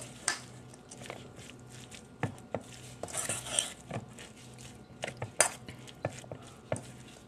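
A fork clinking and scraping against a stainless steel mixing bowl while tossing creamy coleslaw, irregular sharp taps with a short rustle of shredded cabbage about three seconds in.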